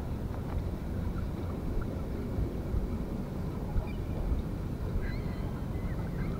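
Wind buffeting the microphone, a steady low rumble, with a few faint high chirps near the end.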